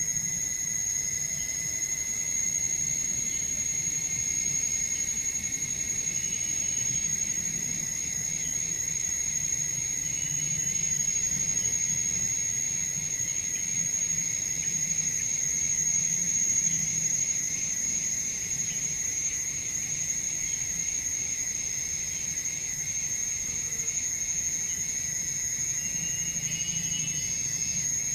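A chorus of insects singing in a steady, unbroken high-pitched drone, with a second, weaker insect tone lower down.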